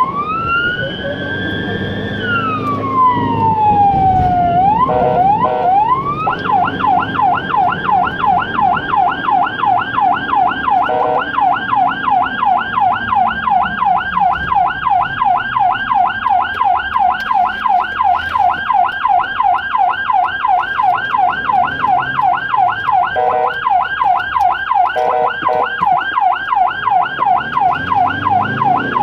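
Ambulance siren on an emergency run: one slow wail rises and falls over the first few seconds, then about six seconds in it switches to a fast yelp of about four sweeps a second that runs on. A few short, lower blasts cut in now and then.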